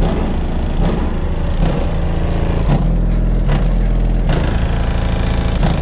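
Eight Skar DDX 12-inch car subwoofers playing a bass-heavy track at high volume: deep sustained bass notes with a beat hitting about once a second, the lowest note strongest a few seconds in.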